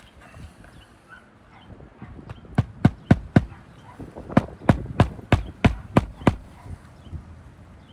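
Hammer driving roofing nails through a shingle into the roof decking: two runs of sharp blows, about four and then about seven, roughly three a second.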